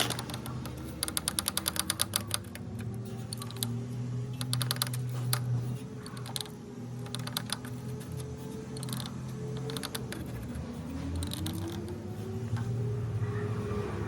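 Background music with a steady low drone and a slowly gliding tone, over a quick run of clicks about a second in and scattered clicks after.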